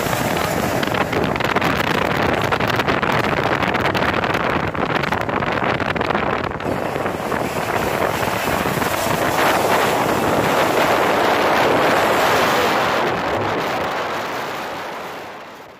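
Heavy trucks driving past close by, one after another. Their engines and exhausts make a loud, steady rushing whoosh that swells about ten seconds in and fades out at the end.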